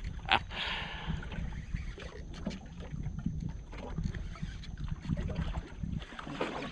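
Water lapping against a skiff's hull, with a steady low wind rumble on the microphone and a few sharp clicks in the first half second.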